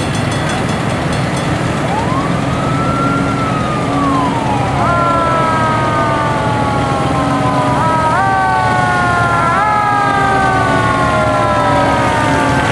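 Vintage fire truck siren wailing over the rumble of passing antique fire engines. One wail rises and falls about two seconds in. From about five seconds a siren tone slowly winds down and is pushed back up twice.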